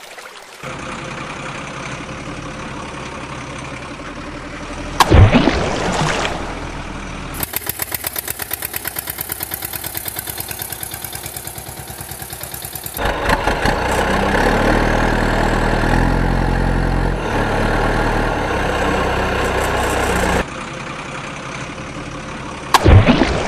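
Truck engine sound effects dubbed over the toy play. There is a sudden loud burst about five seconds in, then an idle with quick regular pulses, then a louder, heavier engine running for several seconds. It drops back near the end, where another sudden burst comes.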